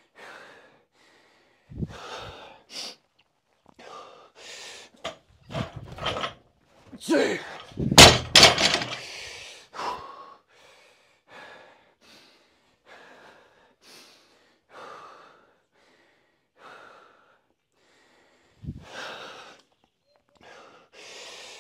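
Hard breathing and grunts of effort during a heavy barbell set, with the loaded barbell's plates thudding on the floor about two seconds in, loudest about eight seconds in, and again near the end.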